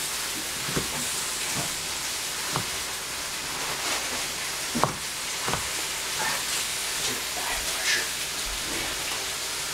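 Steady sizzling of food frying in a pan, with several sharp chops of a cleaver cutting eggplant on a plastic cutting board, the loudest about five seconds in.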